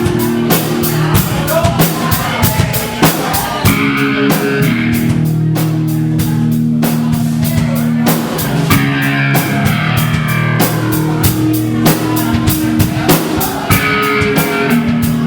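Live rock band playing an instrumental passage: a drum kit keeping a steady beat under electric guitar and bass holding long low notes.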